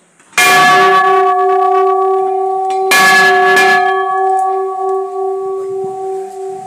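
Hanging brass temple bell struck twice, about two and a half seconds apart. Each strike rings on in long, steady, slowly fading tones.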